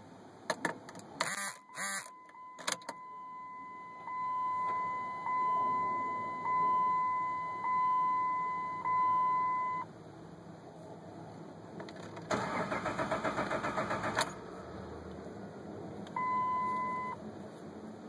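A 2007 Jeep Liberty's dashboard chime dings steadily with the key in, then about two seconds of rapid clicking comes as the starter is tried, and the engine does not crank. Rapid clicking without cranking is typical of a starter solenoid chattering on a weak battery. A few sharp clicks of keys are heard near the start.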